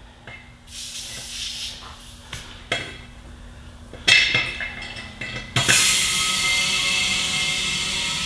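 Compressed air hissing at a truck tire's valve as an air chuck is fitted: a few short hisses and metal clinks, then from about five and a half seconds a steady loud hiss of air filling the tire to seat the bead.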